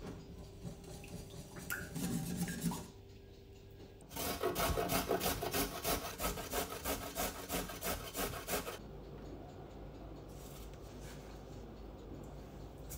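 A wire whisk beats eggs in a ceramic bowl for the first few seconds. Then, about four seconds in, a carrot is grated on a stainless-steel box grater in quick rasping strokes, about three a second, for some five seconds; this is the loudest sound.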